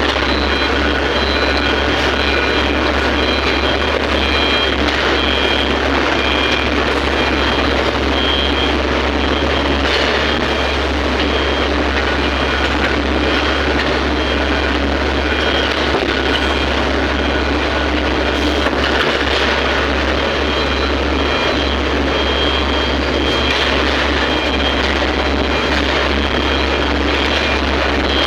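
Excavator's diesel engine and hydraulics running steadily and loudly.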